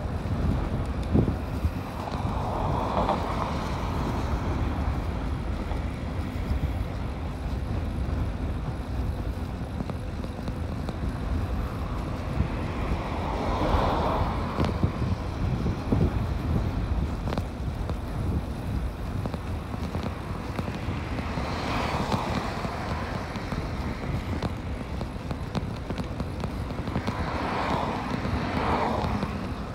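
Wind rushing over the microphone and tyre rumble from an e-bike riding along a concrete sidewalk, with louder swells of noise four times.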